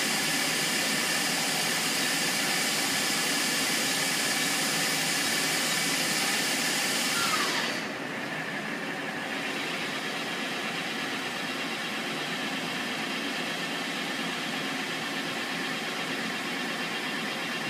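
Okuma LB-25/60 CNC lathe running steadily, a hiss with several steady whines, until about seven and a half seconds in, when a falling whine and the dying hiss mark the spindle winding down. The machine's lower steady hum carries on after it.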